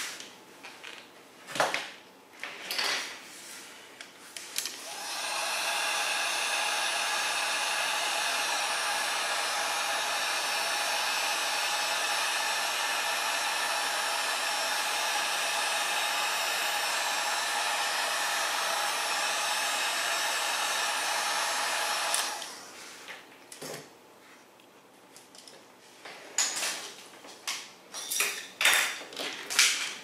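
Electric heat gun running steadily, a fan hum with a whine of several steady tones, heating shrink tubing over a brass fitting; it switches on about four and a half seconds in and shuts off about eight seconds before the end. Light clicks and rustles of small parts being handled before and after it.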